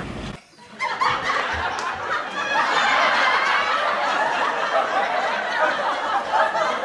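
Several voices laughing together over music, starting suddenly just under a second in after a short dropout.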